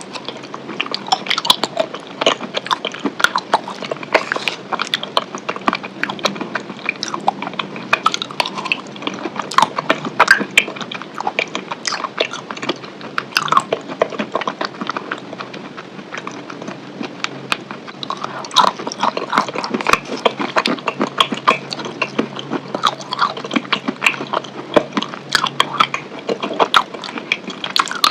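Close-miked chewing and biting of chicken wings: a steady run of irregular wet mouth clicks and smacks.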